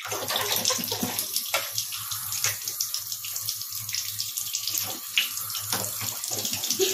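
Water from a kitchen tap running into a stainless steel sink, turned on suddenly at the start, with splashes as a steel ladle is rinsed under the stream.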